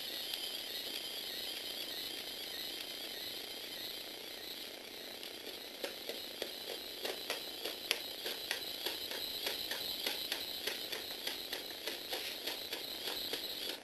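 Lego Technic robot's 8293 Power Functions motor and plastic gear trains whirring steadily as its four linkage legs run. From about six seconds in, its plastic feet tap on a hard wooden floor, about three or four taps a second.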